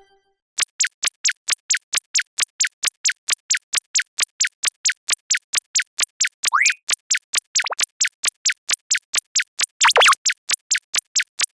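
Rapid, even ticking, about four ticks a second. A short rising whistle-like glide comes about six and a half seconds in, and a louder sweep near ten seconds.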